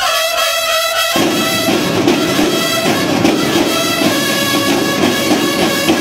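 Loud brass band music starting abruptly: a held brass chord for about a second, then drums and bass come in and the full band plays on with a steady beat.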